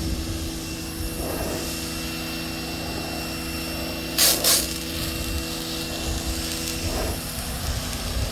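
Giraffe Tools Grandfalls electric pressure washer running with a steady hum. Two short, loud hisses about four seconds in.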